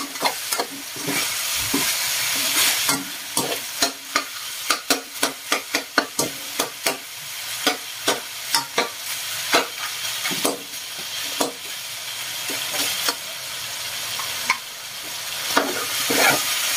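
Cubed pork and chicken sizzling in oil in a wok as they brown, with a spatula repeatedly scraping and clinking against the pan as the meat is stirred.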